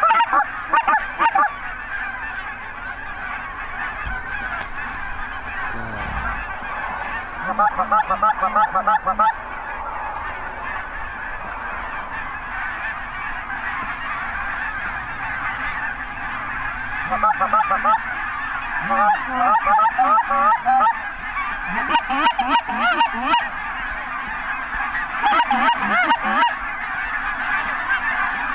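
Large flocks of geese honking continuously, a dense chorus of overlapping calls. Several times, about a second in, around eight seconds in, from about seventeen to twenty-three seconds and again near twenty-six seconds, loud bursts of rapid honks and clucks stand out close by.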